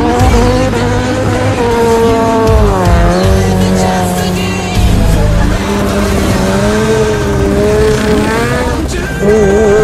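Subaru wagon drifting: its engine revving hard, pitch rising and falling over and over, with tyres squealing as it slides in smoky donuts.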